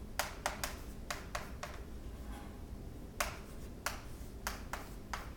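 Chalk tapping and scratching on a blackboard as words are written: a run of sharp, irregular taps, a pause of about a second midway, then more taps.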